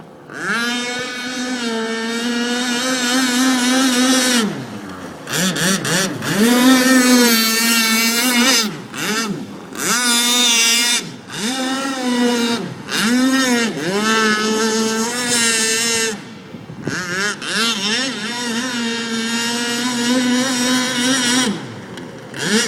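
Pro Boat Blackjack RC boat's electric motor whining as the boat runs, the pitch sliding up and down with the throttle. It backs off and drops out briefly several times, then winds up again.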